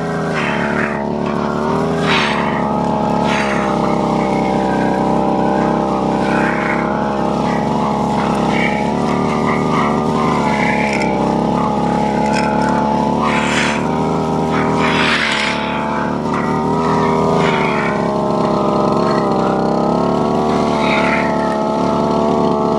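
Brush cutter (grass-cutting machine) engine running steadily under load with a weeding blade fitted for rice paddies. Its pitch dips and recovers a few times. Short noisy bursts sound over it.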